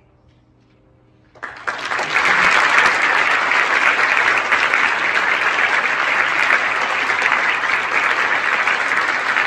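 The last piano chord fades away, and about a second and a half in an audience starts applauding, a dense, steady clapping that continues to the end.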